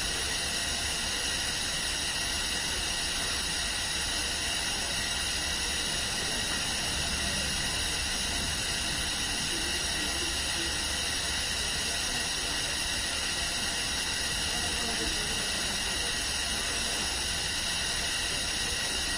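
Hospital room ambience: a steady hiss of air and equipment with several faint constant high tones and a low hum, and faint distant voices now and then.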